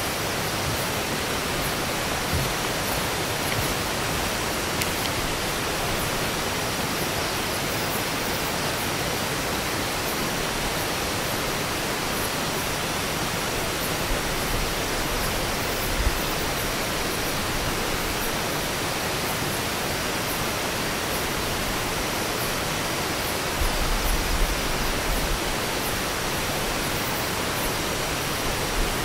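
Steady, even rush of river water running close by, with a few low thumps about 16 s in and around 24 to 25 s.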